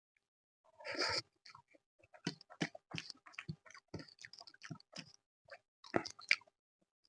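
Close-up mouth sounds of someone eating chicken curry with rice and naan: wet chewing and smacking in quick irregular clicks, with a louder burst about a second in.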